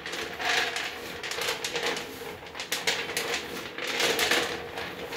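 Handfuls of raw, wet groundnuts (peanuts) being scooped up and let fall back onto a metal baking sheet, pattering and rattling against the tray a few times as they are tossed with salt.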